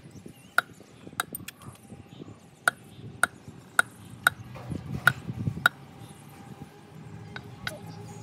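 A steady series of sharp knocks, roughly one every half-second to second, each with a brief ring. They stop for about two seconds after the middle, then resume.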